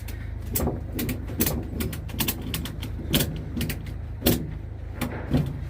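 Irregular sharp clicks and knocks from a tie-down strap being worked and tightened over plywood sheets on a trailer, over a steady low rumble.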